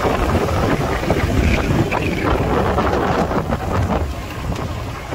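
Motorcycle engine running while riding a dirt trail, with heavy wind buffeting the microphone.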